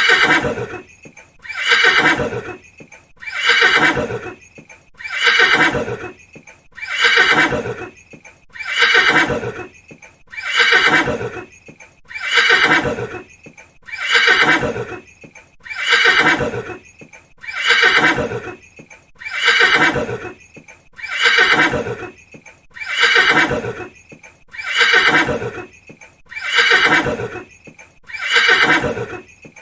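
A horse whinnying, the same call repeated evenly about every second and three-quarters. Each whinny starts high and slides down in pitch over about a second.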